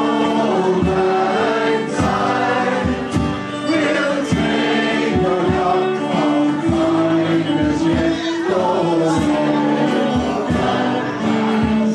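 Live Scottish folk music: a man singing to acoustic guitar, with a bodhrán keeping a steady beat.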